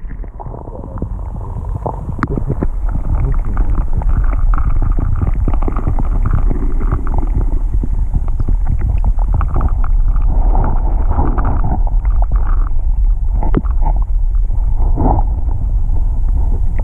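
Muffled low rumble and churning of river water heard through a camera held underwater, with a few faint knocks. It grows louder about three seconds in, then stays steady.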